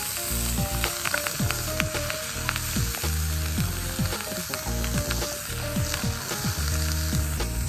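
Wieners and sliced meat sizzling as they fry in a frying pan on a portable gas burner, with scattered light clicks of a spatula and chopsticks against the pan.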